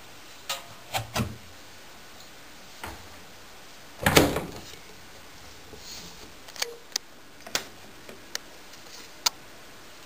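Clicks and knocks from handling a Candy front-loading washing machine's stainless-steel drum and door: three near the start, one louder clunk with a short rattle about four seconds in, then a few scattered sharp clicks.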